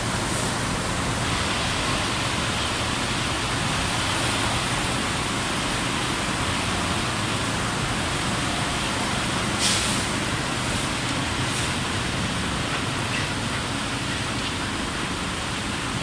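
Traffic wading through a deeply flooded street: motorcycle and car engines running and water washing around the wheels in a steady wash of noise. A short louder burst comes about ten seconds in.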